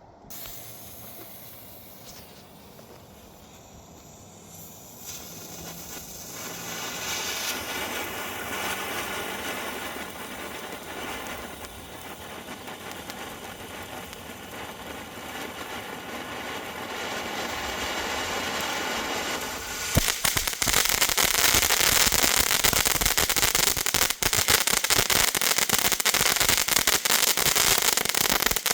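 Consumer firework fountain burning: a spraying hiss that builds over several seconds, then about two-thirds of the way through breaks suddenly into loud, dense crackling.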